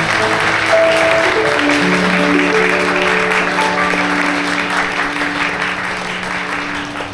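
Guests applauding over slow instrumental music with long held notes; the clapping thins out near the end.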